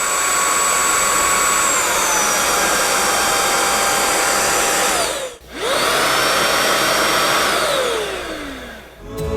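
Prettycare W200 cordless stick vacuum's motor running with a steady high whine that steps down in pitch about two seconds in, as it changes from one power setting (regular or turbo) to the other. About five seconds in it cuts out, spins straight back up, and near the end winds down as it is switched off.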